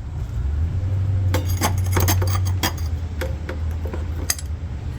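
Metal hand tools (breaker bar and socket) clinking and knocking against each other and the engine's crank pulley bolt, as a quick cluster of sharp clinks a little over a second in and a few separate knocks later. A steady low hum runs underneath.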